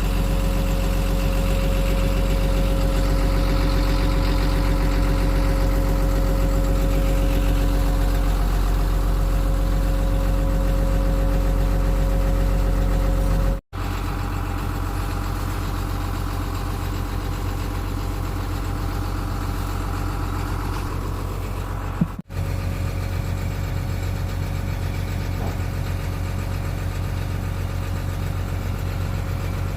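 Sunward excavator's diesel engine idling steadily, its hum broken off abruptly twice by short gaps.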